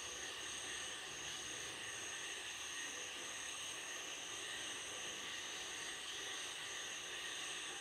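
A steady insect chorus: several continuous high-pitched trills at different pitches.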